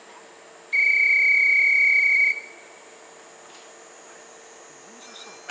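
A railway whistle blown once at a station platform: one steady, loud, high-pitched tone lasting about a second and a half, the kind of whistle blown to signal a train's departure.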